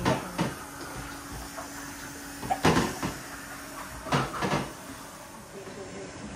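A few sharp household knocks and clatters, like things being handled and set down in a kitchen. There is one near the start, a louder cluster about two and a half seconds in and another around four seconds in, all over a faint steady hum.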